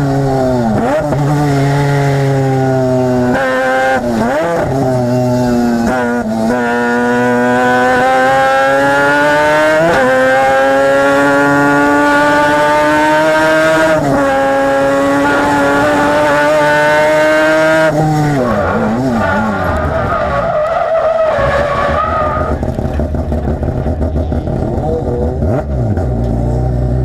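Mazda 13B peripheral-port rotary engine of an RX-8 race car heard at the exhaust. It is at full throttle, the pitch climbing and then dropping sharply at each shift or lift, every few seconds. About eighteen seconds in the revs fall away, and the engine ends up running rough and uneven at low revs.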